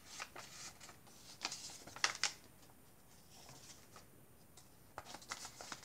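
Paper rustling and light handling noises as cards are slid in and out of pockets and a page of a handmade paper journal is turned, with the sharpest rustle about two seconds in and another cluster near the end.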